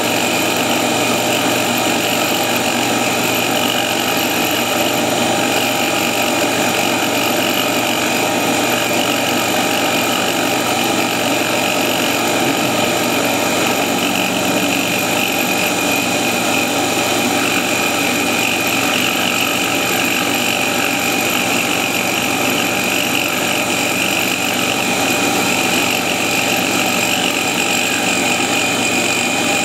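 A CNC-controlled mill/drill runs steadily while its small end mill cuts a pie-shaped groove into quarter-inch aluminium plate. The spindle motor and cut give an even, unbroken machine sound with several steady tones and no pauses or changes in pitch.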